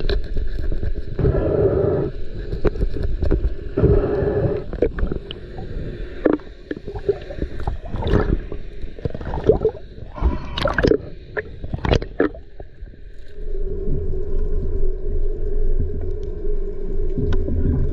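Underwater camera sound of a spearfisher grappling with a large speared fish: uneven muffled knocks, clicks and scrapes over a low water rush. About thirteen seconds in the knocking stops and a steady low drone takes over.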